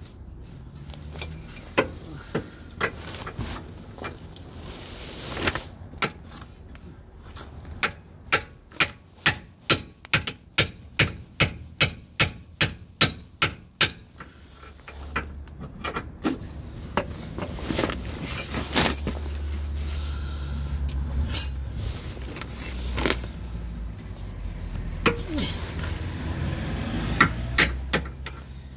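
Hammer blows on metal while driving out a stuck drive shaft. Scattered single knocks are followed by a fast run of about fifteen strikes, two or three a second, then more scattered knocks. A low steady hum comes in during the second half.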